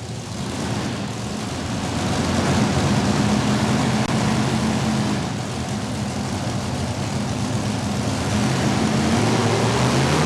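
A 7,200 lb modified pulling tractor under full throttle on a pull, its engine sound building over the first couple of seconds and then holding loud and steady, sagging slightly midway before picking up again.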